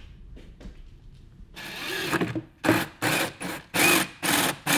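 DeWalt 20V MAX cordless drill boring into the side of a boat hull. It runs briefly about a second and a half in, then goes in a string of short bursts, about two to three a second, as the trigger is pulsed.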